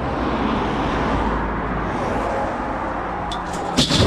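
Road vehicle noise, engine rumble and tyre hiss, swelling over the first couple of seconds and easing off, followed by a brief clatter of sharp clicks near the end.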